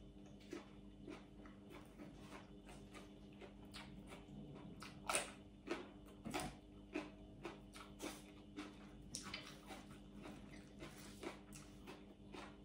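A person chewing a mouthful of food close to the microphone: faint, irregular crunches and mouth clicks, with two louder ones about five and six seconds in.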